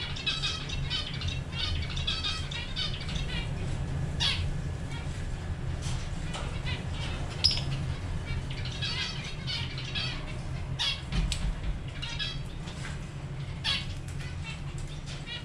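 A pair of lovebirds chattering: runs of rapid high twittering broken by short, sharp chirps and squawks, over a steady low hum.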